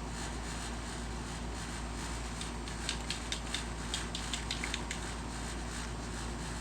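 Steady background noise with a low rumble, and a quick run of light clicks or taps from about two and a half to five seconds in.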